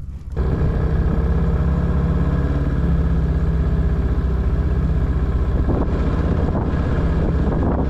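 Small boat outboard motor running steadily with the boat under way. It comes in abruptly about half a second in.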